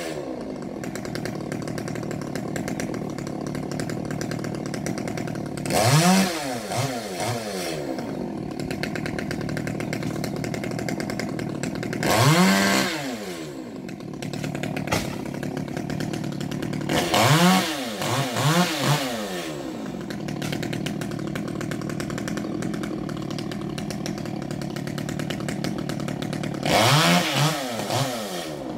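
Two-stroke chainsaw idling steadily, revved in about six short bursts spaced several seconds apart, each rising in pitch and dropping back to idle.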